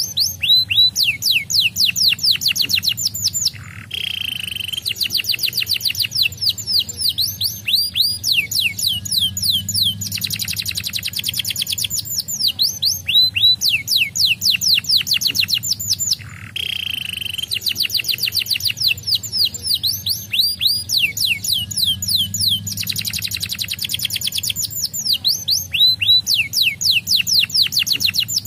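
Domestic canary singing: fast trills of rapidly falling notes, one roll after another with brief breaks, the same song sequence coming round again about every twelve and a half seconds.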